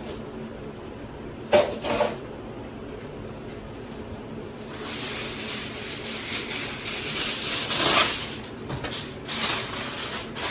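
Two knocks about a second and a half in, then aluminium foil crinkling and rustling as it is pulled out and laid loosely over a baking dish.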